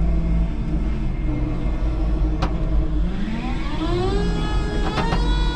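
5-ton electric forklift running with a low rumble. About three seconds in, its electric motor whine rises steadily in pitch as it speeds up, then holds. A single sharp click comes about halfway through.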